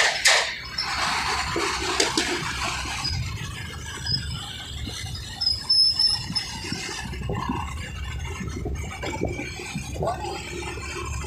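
Wind rushing over the microphone of a vehicle moving through city traffic, with a low rumble of engines and tyres underneath. The wind is loudest in the first couple of seconds, and a few brief faint high squeals come through.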